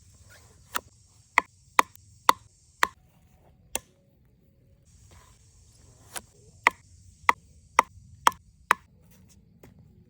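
Sharp knocks or chopping strokes, about two a second, in two runs of six with a pause between, over a faint high hiss.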